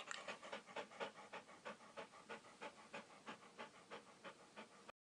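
A dog panting in a steady rhythm, about three breaths a second, cutting off abruptly near the end.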